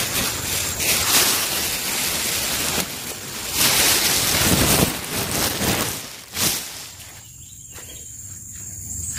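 Plastic greenhouse sheeting rustling and crinkling as it is pulled open by hand, in irregular surges with a sharp crackle about six and a half seconds in. After that it settles, leaving crickets trilling steadily on one high note.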